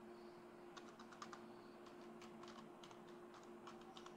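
Faint computer keyboard typing: irregular key clicks over a steady low hum.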